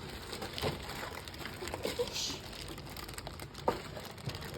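Plastic packaging wrapper rustling and crinkling as it is handled and pulled off the keyboard, with a few light knocks.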